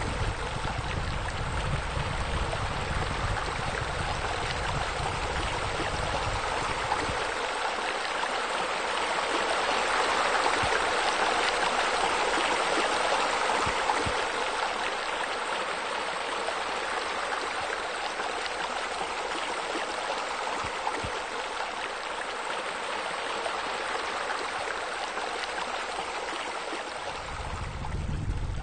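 Steady rush of flowing water, with a low rumble underneath that drops away about seven seconds in and comes back near the end.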